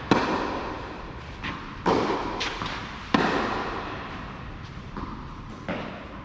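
Tennis balls struck by rackets in a rally: three loud, sharp hits about a second or so apart, the first of them the serve and the loudest, with fainter hits and bounces between and after, each echoing in the enclosed hall.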